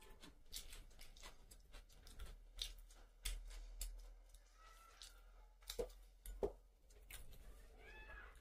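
Faint eating sounds: irregular small clicks and smacks of chewing and of fingers handling rice and salad, with a few sharper clicks in the middle.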